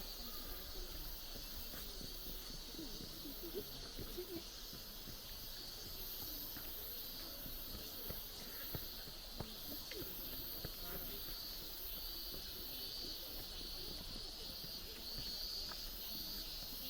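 Steady high-pitched hiss, slightly pulsing, with faint distant voices and a few soft clicks beneath it.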